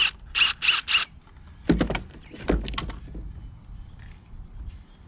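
Pump assembly parts being handled: three or four short squeaky scrapes in the first second, then a few knocks and clatter about two seconds in.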